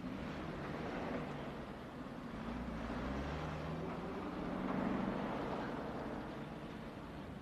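An old sedan's engine running as the car turns off the street and pulls in slowly, getting louder about five seconds in.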